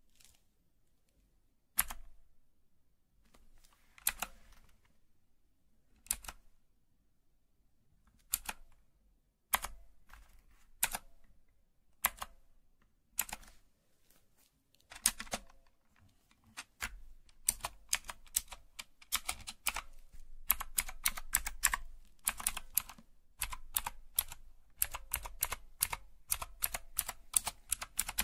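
Sharp clicks, one every second or two at first, then coming in quick irregular runs from about halfway through.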